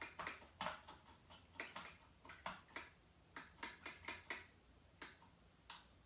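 Faint, irregular clicks and taps of a paintbrush being washed out, the brush knocking against its rinse cup.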